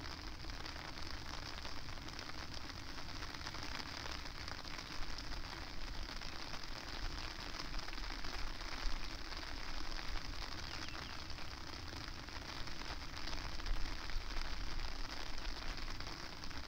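Steady rain falling: a dense patter of fine drop ticks, with a low wind rumble on the microphone.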